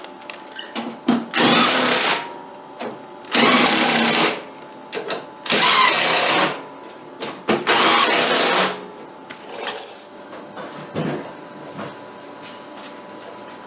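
A small power tool run in four bursts of about a second each, with light clicks and knocks between them.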